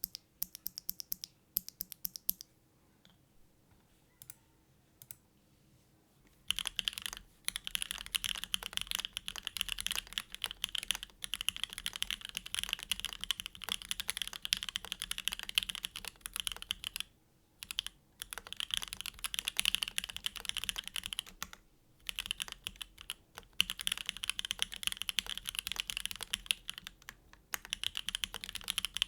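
Neo Ergo gasket-mount mechanical keyboard with an aluminium plate and case foam, fitted with hand-lubed Gateron Oil King linear switches and GMK Serika keycaps, being typed on. A few separate keystrokes come first, then fast continuous typing from about six seconds in, with a few brief pauses.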